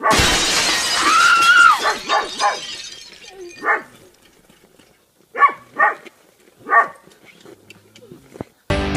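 A loud noisy burst with a rising-then-falling cry in the first two seconds, then short bark-like calls, one or two at a time, spaced a second or more apart.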